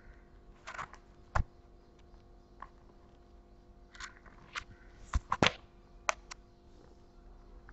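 Handling noise: a scattered series of sharp clicks and light knocks, loudest in a quick cluster about five seconds in, over a faint steady hum.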